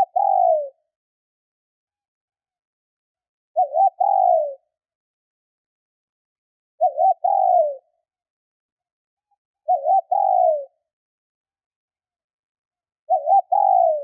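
Female spotted dove cooing, a call used to rouse male doves: the same phrase five times, about every three seconds, two short notes and then a longer falling note.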